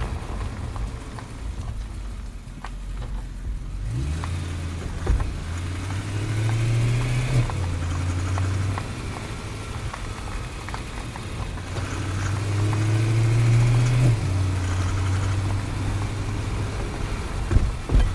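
Underside of a BMW E90 M3 on the move: the S65 V8's drone climbs and drops back twice, over a driveshaft rattle and scattered sharp tinks. The owner takes the rattle for a worn CV joint halfway along the driveshaft and the tink for a dry centre support bearing needing its grease repacked.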